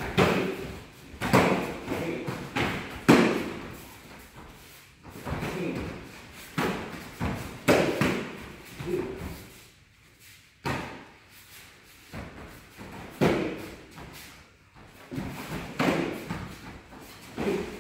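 Taekwondo sparring: irregular thuds of kicks landing on padded chest protectors and feet stamping on foam mats, a dozen or so sharp impacts spread unevenly, each with a short echo.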